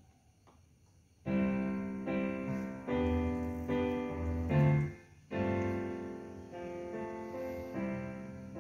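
Yamaha DGX-660 digital piano sounding its 'Pianist' preset style: piano chords start abruptly about a second in, break off for a moment near the middle, then start again.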